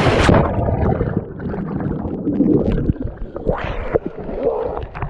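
A loud splash as a person and camera plunge into a pool. It is followed by muffled underwater churning and gurgling of disturbed water, heard through the submerged camera.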